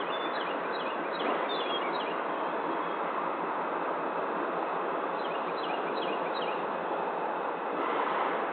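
Steady outdoor background rush with a small bird giving short series of quick, downward-slurred chirps, once at the start and again about two-thirds of the way through.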